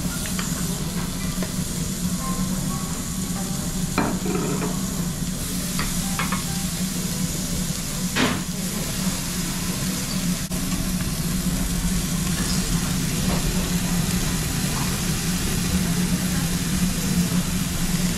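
Meat sizzling on a gas tabletop yakiniku grill over a steady low hum, with a few sharp clicks of metal tongs on the grill grate.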